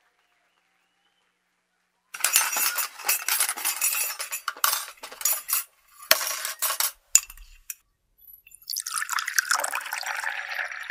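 Water poured and splashing from a glass pitcher, with clinks of glass, starting about two seconds in after near silence.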